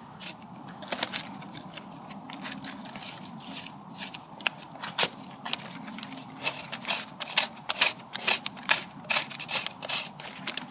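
Dry twigs and woodland litter snapping and crackling in irregular sharp cracks while fire-lighting materials are gathered. The cracks are sparse at first and come thick and fast from about halfway.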